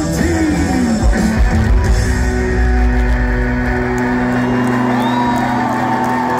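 Live rock band with electric guitars, bass and drums, recorded loud in an arena. About two and a half seconds in, the heavy low end drops away, leaving held guitar notes, some bending slowly in pitch.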